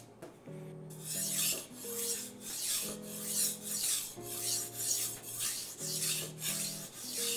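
A dull Cutco kitchen knife is stroked edge-first along a wet 1000-grit whetstone. It makes a repeated rasping scrape, about two strokes a second, as the steel is ground toward raising a burr.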